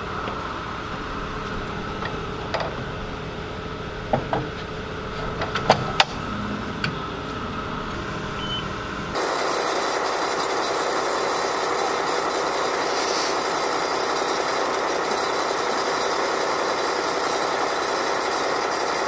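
Steady mechanical hum with a few short, sharp metallic clanks as the crew works the M777 howitzer. About halfway through, the sound changes abruptly to a louder, steady rushing noise with no gunshot in it.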